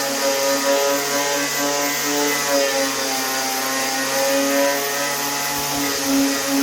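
A handheld electric power tool running steadily, its motor giving a high whine with a slight waver, as used to clean rust back to bare metal on a car door panel.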